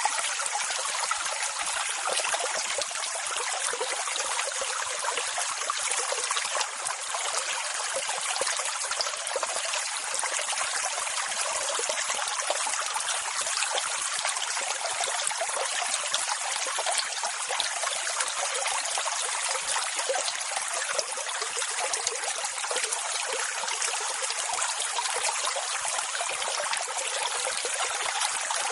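Continuous rushing, trickling water at a steady level, with no slow rise and fall of separate breaking waves and no deep rumble.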